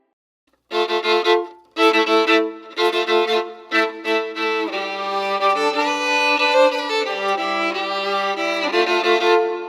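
Violin playing several notes at once, in short bowed strokes at first and then longer held notes after a few seconds, with added studio reverb. It starts after a brief silence.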